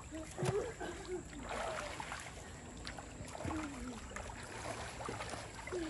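Water splashing and lapping as a child paddles in a swimming pool, with faint voices in the background.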